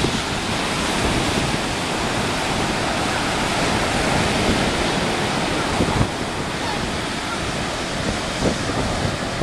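Ocean surf breaking and washing up a sandy beach: a steady, loud rush of white water, with wind buffeting the microphone and a couple of short bumps near the middle and toward the end.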